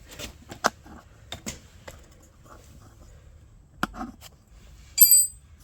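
Scattered light clicks and knocks of parts and tools being handled on a small engine, then a short, ringing high clink about five seconds in, the loudest sound.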